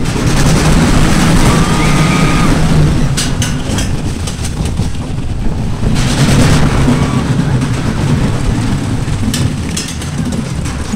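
Roller coaster train running along the track: a loud, steady rumble and rattle of the cars on the rails. It is broken by sharp clatters about three seconds in and again near the end, with a brief high squeal about two seconds in.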